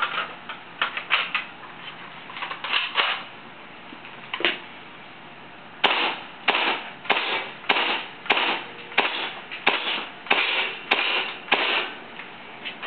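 Propane-gassed airsoft M14 gas blowback rifle firing ten semi-automatic shots in a steady string, about a shot every two-thirds of a second, each a sharp crack as the bolt cycles. Before the string, scattered clicks and clatter as the magazine is seated and the rifle is handled.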